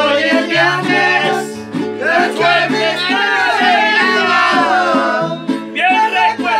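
A trio's song: sung vocals over plucked guitars, with a bass line stepping from note to note.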